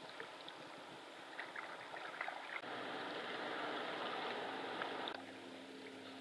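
Water trickling and dripping around a kayak as it is paddled, with small drips early on and a louder stretch of rushing water from the middle that drops back abruptly about a second before the end.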